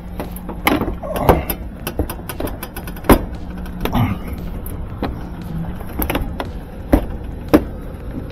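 Irregular sharp clicks and knocks of hands handling a top-load washer's plastic lid and control console, over a steady low hum.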